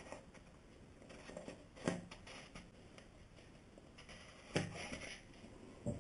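Plastic battery base being screwed by hand back onto a camping lantern: faint scraping of the plastic threads, with a few light knocks of plastic on plastic, about two seconds in, about four and a half seconds in and just before the end.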